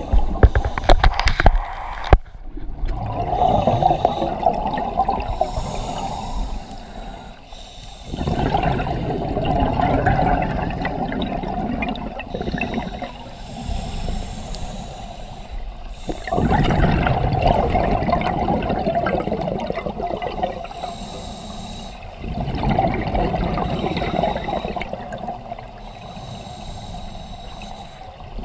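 Scuba breathing recorded underwater: a diver's exhaled bubbles rush and gurgle out of the regulator in four long surges, with quieter inhales between. A few sharp knocks in the first two seconds.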